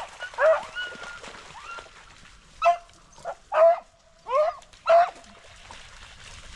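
Hunting beagles baying: a series of separate yelping cries, each rising at its start, spread over the first five seconds, as hounds give tongue while following a rabbit's scent.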